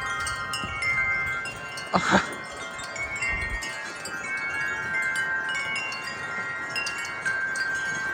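Several wind chimes ringing in gusty wind, with many overlapping notes sustaining and sounding anew. One brief loud noise about two seconds in is the loudest moment, and a low rumble of wind on the microphone comes and goes.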